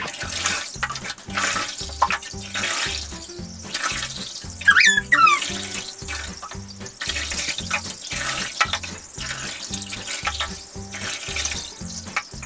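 Water poured from a cup over a dog in a bathtub, splashing and running off in repeated pours, over background music with a steady beat. A brief high, wavering sliding sound stands out about five seconds in.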